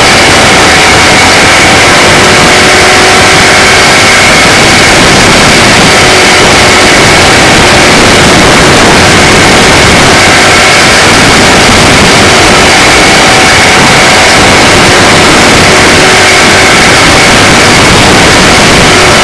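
Onboard sound of a small microd race car at racing speed: its engine running hard under wind noise. It is loud, steady and distorted, with a faint high whine.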